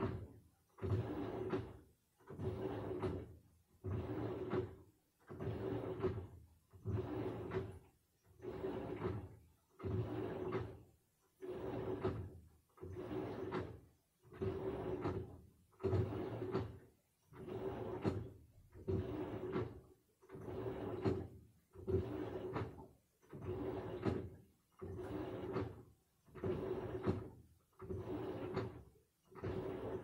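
Samsung top-loading washing machine in its wash cycle, the motor churning the load back and forth in short strokes about once a second. Each stroke is a motor hum with swishing water, with a brief pause between strokes.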